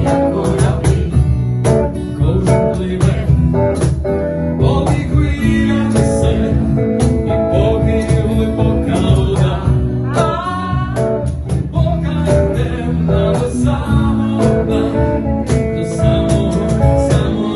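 A band playing a song: guitar and drums, with a voice singing.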